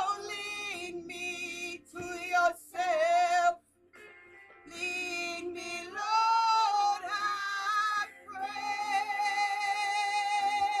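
A woman singing a slow worship song solo, holding long drawn-out notes, with a short break about four seconds in and one long held note near the end.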